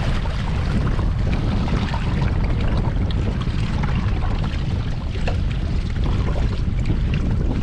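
Strong wind buffeting the microphone in a steady low rumble, with scattered splashes of waves against a boat.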